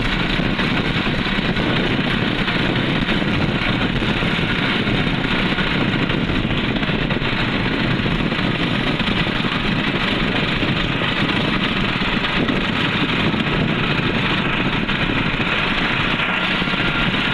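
New Holland Chetak tractor's diesel engine, fitted with a turbo whistle, running steadily as the tractor is driven along the road.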